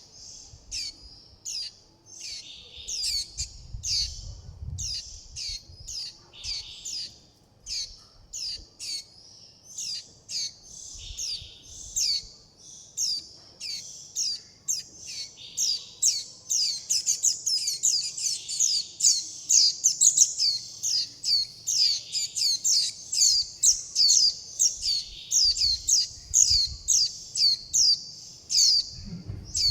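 Juvenile white-eyes giving rapid, high, thin begging and contact calls: short downward-slurred notes repeated a few times a second. The calls grow denser and louder about halfway through.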